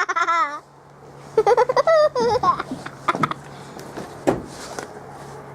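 A child laughing in high, wavering squeals, twice in the first couple of seconds, followed by a few scattered knocks.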